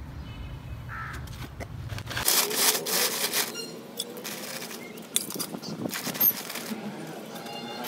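Rough sawing, rasping scrapes with a few sharp clicks: the roots of a root-bound potted olive tree being cut back.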